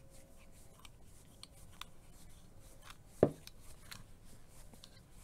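Plastic fitting wrapped in plumber's tape being screwed by hand into the plastic end cap of a reverse osmosis membrane housing: faint rubbing and small clicks of plastic on plastic, with one sharper click about three seconds in.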